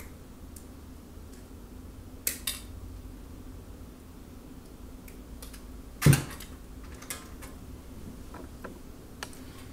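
Hand cutters clicking and snipping on thin electrical wire leads, with a louder clack about six seconds in, over a faint steady hum.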